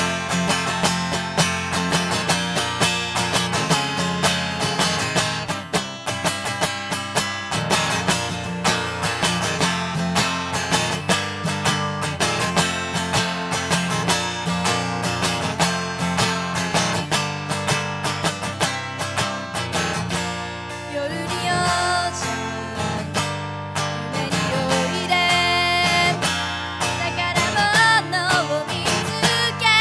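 Acoustic guitar strummed steadily in a fast song. A young woman's singing voice comes to the fore in the second half.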